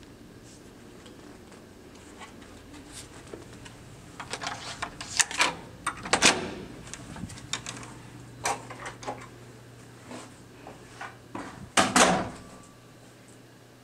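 Hotel room door with an electronic keycard lock being unlocked and opened: a run of sharp clicks and clatters from the card lock, lever handle and latch, then a few lighter clicks. Near the end comes a louder knock and clatter of another door being handled.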